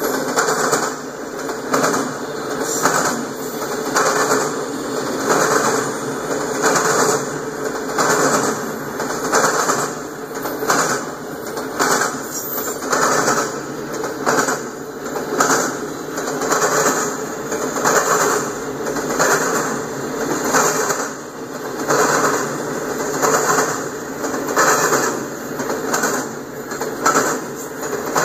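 Double-stack intermodal freight train rolling past, its steel wheels clacking over the rail in a steady, repeating rhythm as the loaded well cars go by.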